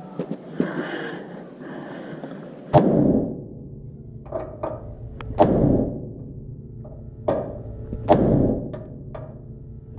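Hammer striking a steel punch at the truck's frame, knocking the drop-hanger hardware through. The blows come singly and irregularly, the heaviest about three seconds and five and a half seconds in, with lighter taps between.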